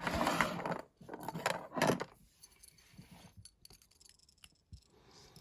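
Small metal tool and lock being handled: metal clinking and scraping for about two seconds, then a few faint clicks.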